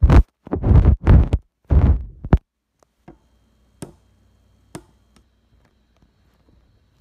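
Handling noise on a phone's microphone as the camera lens is wiped clean with fabric: several loud rubbing scuffs over the first two and a half seconds, then a few light taps and clicks.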